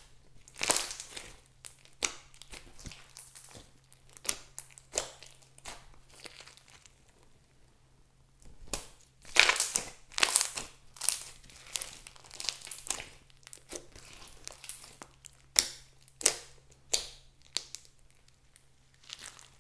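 Hands squeezing and kneading a big mass of clear slime mixed with fluffy slime and foam beads, giving irregular wet crackles and popping of trapped air, in uneven clusters that are loudest about nine to eleven seconds in.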